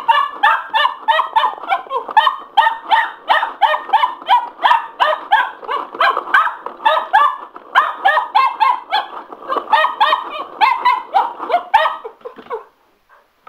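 Cocker spaniel puppy barking excitedly at a spin mop: a rapid, unbroken string of high yaps, about three a second, that stops about twelve seconds in.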